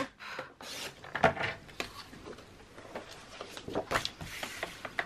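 Sliding paper trimmer and sheets of cardstock being handled on it: a sharp click at the start, then a string of light clicks and short scrapes as the paper is slid and repositioned under the cutter.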